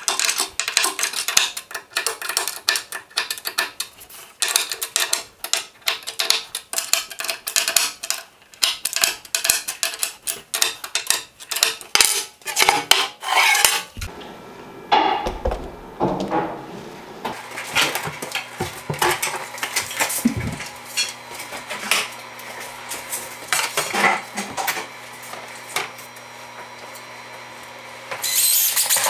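Dense metallic clinking and clicking as bolts, a hex key and aluminium brackets are fitted to a bandsaw's extension table. About halfway through it gives way to scattered knocks of a heavy wooden slab and boards being handled, and a loud burst of power drilling starts near the end.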